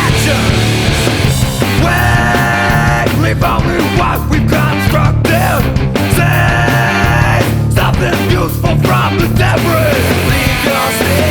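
Loud rock music with a driving drum beat and sustained held notes, in a punk or grunge style.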